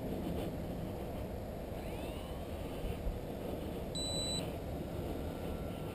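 Wind rumbling on the microphone, with a faint whine that bends in pitch about two seconds in and one short, high electronic beep about four seconds in.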